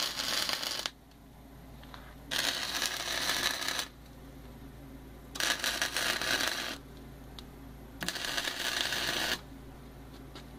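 Electric arc welding of steel square tubing in short runs: a burst of arc noise that ends just under a second in, then three more, each about a second and a half long, with pauses between them.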